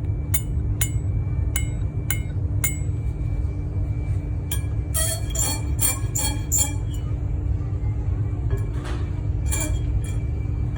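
Honda StepWGN on the move with a steady low road rumble and sharp metallic chinks that repeat about every half second, then come in clusters. This is the rubbing noise from rear brake pads worn almost completely away.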